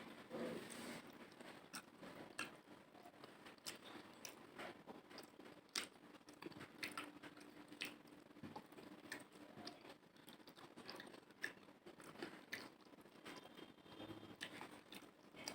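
Faint close-up chewing with scattered small wet clicks and smacks of a person eating rice and curry.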